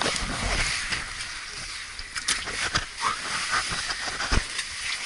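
Rustling and scraping of a caver crawling on gloved hands through a tight cave passage: a steady hiss of clothing and gloves brushing over clay and rock, with scattered small knocks and one heavier thump near the end.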